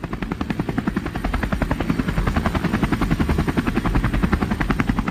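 Helicopter rotor chopping: a loud, rapid, even beat that holds steady throughout.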